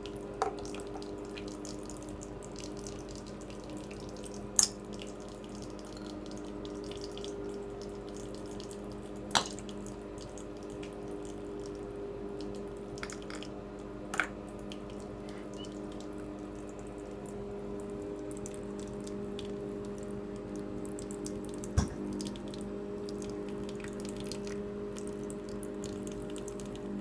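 Water from a tap running into a bathroom sink, a steady wash of water over a low hum, with four short sharp clicks spread through.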